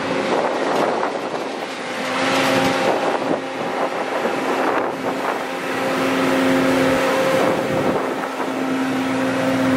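Harsco Mark IV track tamper rolling past close by under its own diesel power. An engine hum fades in and out over the rumble and clatter of the machine, with a few sharp knocks and wind on the microphone.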